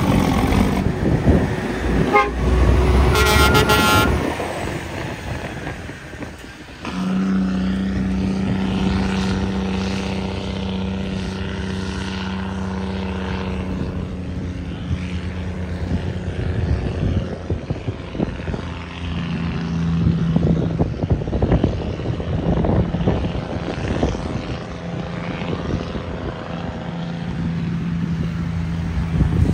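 Heavy diesel truck engine running with a steady drone, and a short horn blast about three seconds in.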